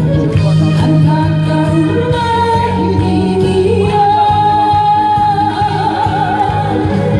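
A woman singing a Korean trot song over a loud backing track, holding a long note with vibrato about two-thirds of the way through.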